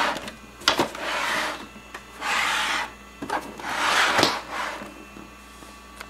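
Plastic case of an electronic typewriter being slid and turned on a tabletop: three scraping rubs with a few knocks in between.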